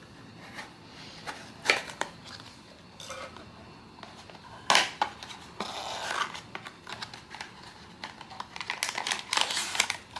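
Blind box packaging being handled and opened: crinkling and tearing of wrapper material with sharp clicks and snaps, two loud ones near the start and a busy run of crinkling near the end.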